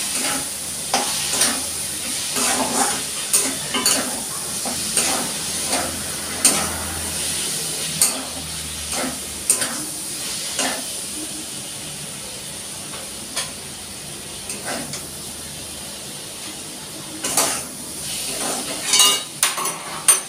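Vegetables sizzling in a steel kadai, with metal tongs clicking and scraping against the pan as they are stir-fried. The stirring stops about halfway through while the steady sizzle goes on, and a few more metal clinks come near the end.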